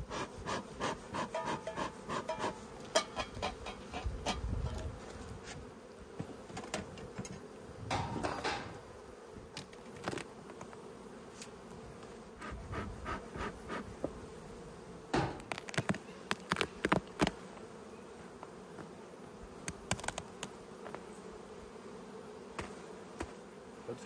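Honeybees humming steadily around an opened Langstroth hive, with scattered clicks, knocks and scrapes as the hive lid and wooden boxes are handled.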